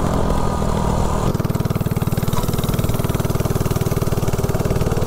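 Coleman CC100X minibike's 179cc LCT single-cylinder snowblower engine, run with no head gasket, as the rider backs off the throttle and the bike slows. About a second in, the steady high-rev note drops to a slower, pulsing beat of individual firing strokes as the engine comes down toward idle.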